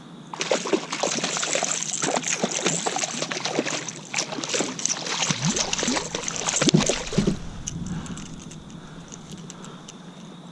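Hooked bluefish thrashing at the water's surface beside the kayak, a dense splashing for about seven seconds that dies away near the end.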